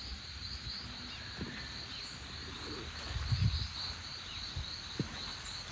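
Insects trill steadily in a high, pulsing chorus. A few low thuds of footsteps on soggy, saturated ground come about three seconds in, and a short tap follows about five seconds in.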